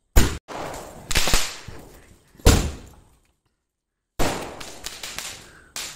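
Fireworks going off: a string of about five sharp bangs, each dying away quickly, with a gap of about a second near the middle.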